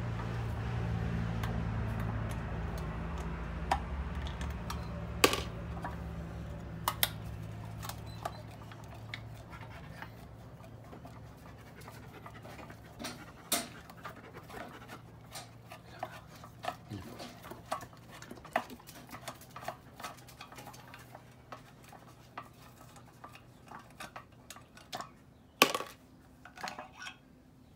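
Scattered small metallic clicks and taps as a screwdriver backs screws out of the fuel pump diaphragm cover on a Victa two-stroke mower's tank-mounted carburettor, with screws dropped into a plastic tub; a sharper knock comes near the end. A low steady hum fades away over the first ten seconds or so.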